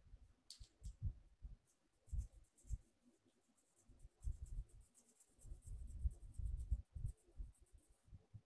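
Faint scratching and scraping of a stick stirring in a small plastic cup, in irregular runs, over dull low thumps from handling.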